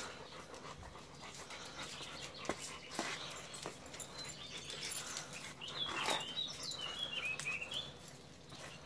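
A husky panting, with rustles and a few sharp clicks from the red dog harness being handled and fitted. About six seconds in comes a high, wavering whine that lasts about a second and a half.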